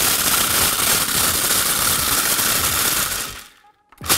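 Food processor running, grinding frozen corn kernels into a powder: a loud, steady whir with grinding grit. It stops for about half a second near the end and then starts again as it is pulsed.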